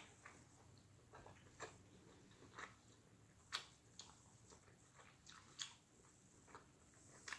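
Faint mouth sounds of a person chewing food: short wet clicks and smacks scattered about a second apart over a low room hum.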